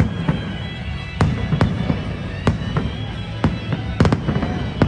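Aerial fireworks shells bursting in quick succession: about ten sharp bangs in under five seconds over a steady low rumble, with several coming close together about four seconds in.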